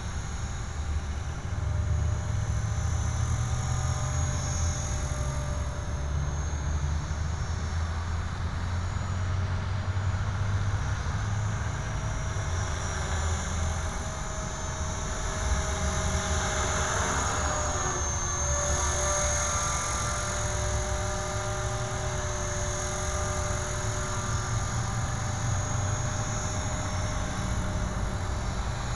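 Blue Ray 450-size electric RC helicopter flying, its motor and rotor giving a steady whine that wavers slightly in pitch, over a constant low rumble.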